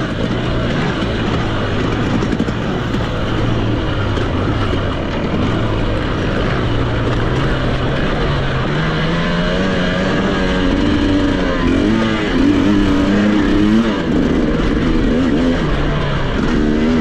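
Off-road motorcycle engine running under changing throttle. Its pitch holds low, climbs about halfway through, then rises and falls repeatedly near the end, over a steady rush of noise.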